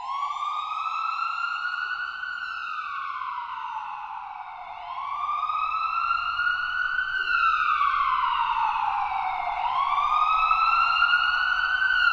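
Emergency vehicle siren in a slow wail, rising over about two seconds and falling back over about three, a cycle roughly every five seconds. It grows louder after the first two cycles.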